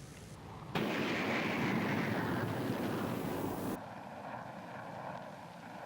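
Military jet aircraft flying past, a loud rushing noise that sets in suddenly and falls in pitch, cut off abruptly about four seconds in. Then a quieter, steady aircraft engine drone with a faint whine.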